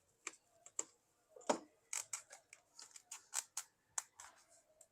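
A series of small, sharp clicks and taps, about a dozen at uneven intervals with the loudest about a second and a half in: a small screwdriver driving screws back into the laptop's battery.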